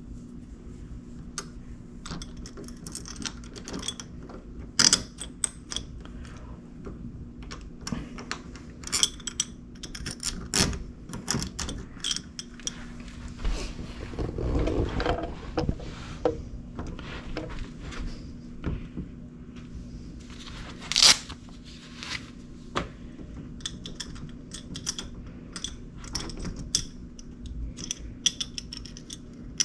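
Small metal clicks, scrapes and knocks of a door lever's mounting screws being driven in by hand and the handle hardware being handled, with two sharper, louder clicks, one about five seconds in and one about two-thirds of the way through. A faint steady hum runs underneath.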